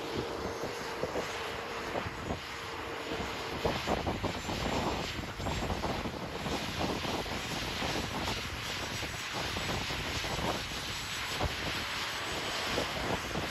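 Wind buffeting the microphone over the running of a Mi-17-family helicopter turning its rotors slowly on the ground. A faint steady whine fades out about a second in.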